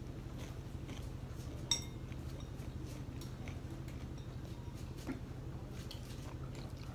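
Metal spoon clinking and scraping against a soup bowl while eating, with one sharp ringing clink a little under two seconds in and a softer knock about five seconds in. A steady low hum runs underneath.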